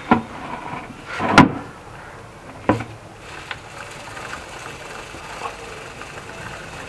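Clip-on plastic chain-cleaning brush on a Bajaj Pulsar N250's drive chain, knocking and clattering as the rear wheel is turned by hand to scrub dust and cleaner out of the chain. Sharp knocks come in the first three seconds, the loudest about a second and a half in, then a quieter steady rattle.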